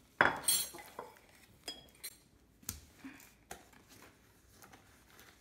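Hard objects clinking and knocking on a countertop as bowls, a spoon and bottles are handled: one loud, ringing clink near the start, then a few lighter knocks.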